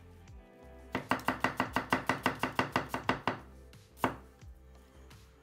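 Mercer Culinary Chinese chef's knife slicing an onion on a wooden cutting board: a quick, even run of about fifteen knife strikes, roughly six a second, then a single strike about a second later.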